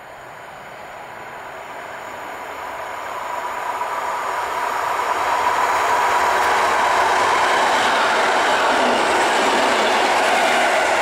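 EN57 electric multiple unit approaching and passing: the running noise of its wheels on the rails grows steadily louder over the first five seconds or so, then stays loud as the carriages go by.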